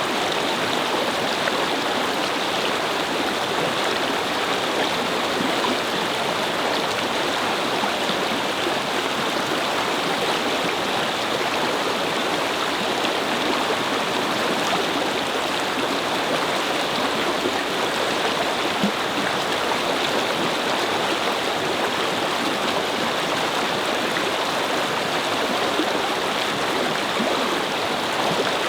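Brook water babbling and flowing over stones in a steady, even rush.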